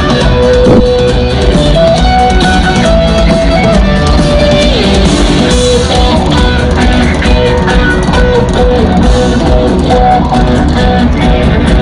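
Loud live rock band playing an instrumental on a large outdoor PA, an electric guitar carrying a melody of held and sliding notes over a drum kit.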